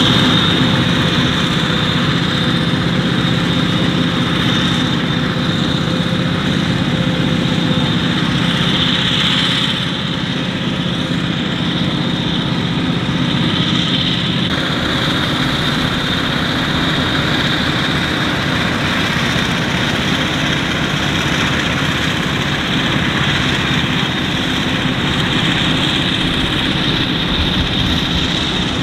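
Heavy diesel farm machinery running steadily, a low engine hum with a high whine over it. The sound changes abruptly about halfway through.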